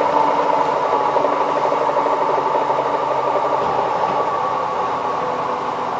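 Hotpoint WT960 washing machine on a high-speed spin, a steady whine and hum from the spinning drum and motor that gets gradually quieter.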